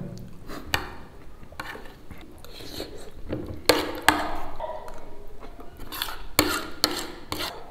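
Someone eating from a plate: scattered clinks and scrapes against the plate, about one every second, with chewing between them.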